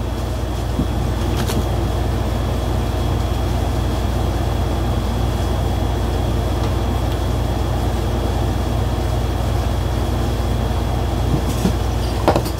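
A steady low hum with a thin, faint high whine over it, unchanging throughout, like a machine or fan running in the room. A few faint small clicks come through near the end.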